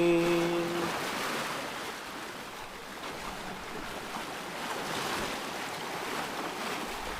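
Ocean waves washing in a steady rush that swells and eases gently, a relaxing nature-sound backing track.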